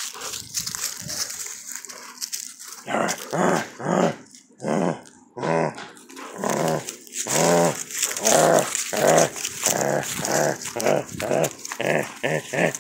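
Puppy growling in a string of short growls while tugging on a chew toy, the growls coming closer together toward the end.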